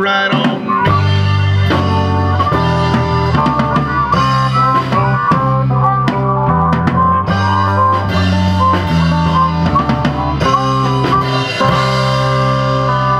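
Live rock band playing an instrumental break: harmonica carrying long held, bending notes over electric guitar, bass guitar and drum kit, with a steady beat.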